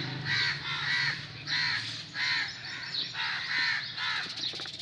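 Crow cawing repeatedly: a steady run of short, harsh calls, about one every two-thirds of a second.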